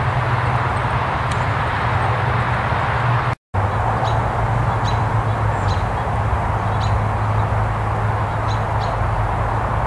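Steady outdoor ambient noise with a low hum. After a brief dropout a little over three seconds in, a bird chirps in short high notes roughly once a second.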